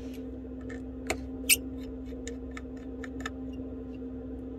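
Small clicks and ticks from a precision screwdriver taking the tiny screws out of an iPhone 11's internal bracket: two sharper clicks about a second in, then light ticks about four a second. A steady low hum runs underneath.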